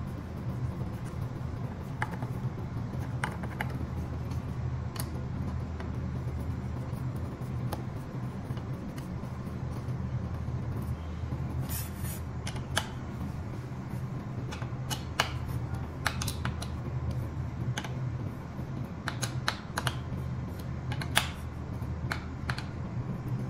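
Irregular light clicks and taps of a screwdriver and metal parts against the front wheel and disc brake caliper of an electric scooter being worked on by hand, over a steady low hum.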